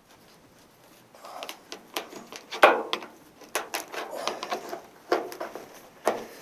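Irregular knocks, clicks and scraping from hand work on the bare windshield opening of a 1941 Ford pickup, with a sharper knock about two and a half seconds in.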